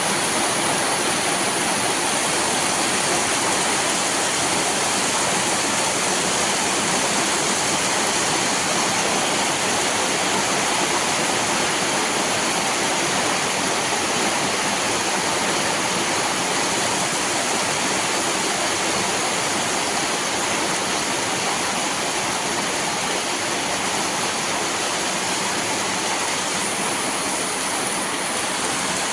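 Steady rain falling: a dense, even hiss that holds unchanged throughout.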